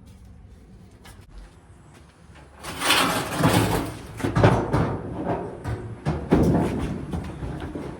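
Sheet-metal dryer panels being handled: quiet at first, then irregular scraping and sliding with sharp knocks from about three seconds in.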